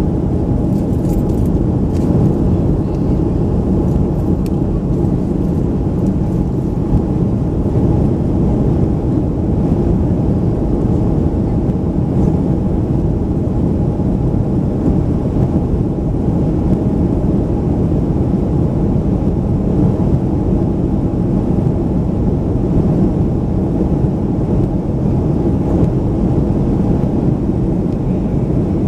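Steady low cabin noise of a Boeing 737-500 in flight, from its CFM56-3 turbofan engines and the air rushing past the fuselage, heard inside the cabin at a window seat by the wing. A faint steady tone sits above the even noise throughout.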